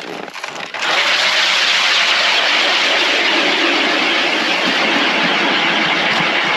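Power ice auger starts up about a second in and drills steadily down through lake ice, its blades making an even grinding hiss. It is cutting smoothly, "like butter".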